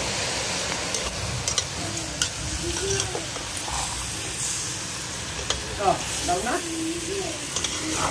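Chicken and vegetable pieces sizzling in an aluminium pot, stirred with a metal ladle that knocks and scrapes against the pot several times.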